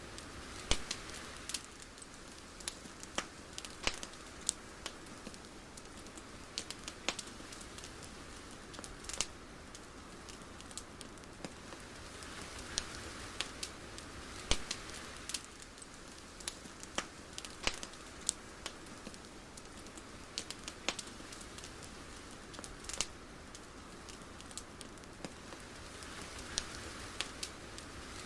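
Ambient crackling: irregular sharp crackles and ticks over a soft steady hiss that swells and fades about every thirteen seconds.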